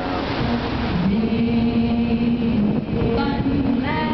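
Bellagio fountain show: the music it plays to, with a long held note about a second in, over the steady rushing hiss of the water jets.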